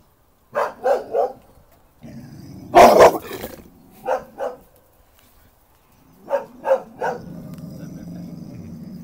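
American Staffordshire terrier barking in quick runs of two or three barks, the loudest burst about three seconds in. It is aggressive territorial barking at a stranger at the fence of its pen.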